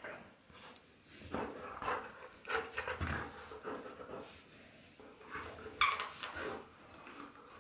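Golden retriever excitedly chewing and mouthing a plush toy: irregular bursts of noise, with a sharper, louder one about six seconds in.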